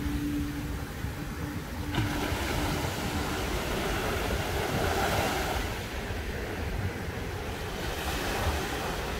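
Small ocean waves breaking on the beach and washing up the sand, with wind buffeting the microphone.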